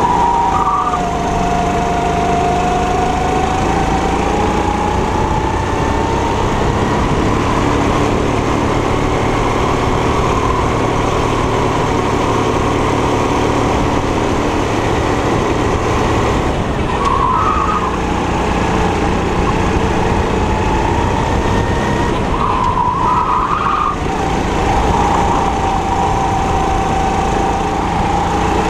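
Four-stroke 270 cc kart engine running at racing speed. Its pitch drops about a second in and twice more past the middle as the kart slows for corners, then climbs back as it accelerates out.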